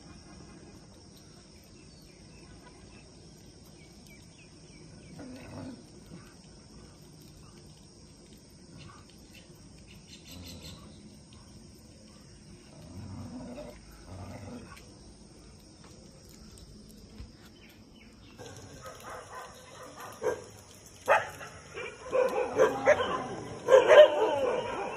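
Animal calls. A few faint calls come first, then about three-quarters of the way in loud, irregular calls follow in quick succession, loudest near the end.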